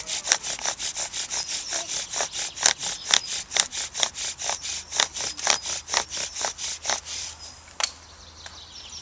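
Bow drill worked quickly back and forth: the wooden spindle rasps and squeaks in the fireboard notch with every stroke of the bow, about five strokes a second, in a friction-fire attempt. The strokes stop about seven seconds in, and a single sharp click follows.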